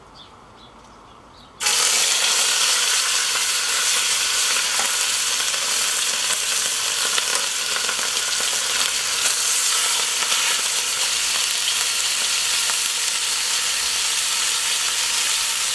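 Raw ox cheeks hitting hot butter in a cast-iron Dutch oven: a loud searing sizzle starts suddenly about a second and a half in and keeps up steadily as the meat browns.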